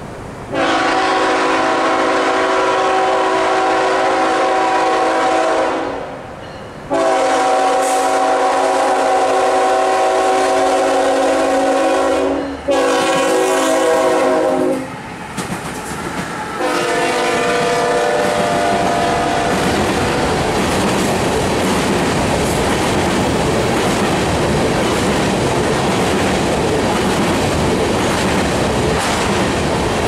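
Lead locomotive's five-chime Nathan K5HL air horn sounding a series of long blasts with short breaks over about the first twenty seconds. Then the locomotives and empty covered grain hoppers pass close by in a steady rumble with wheel clickety-clack.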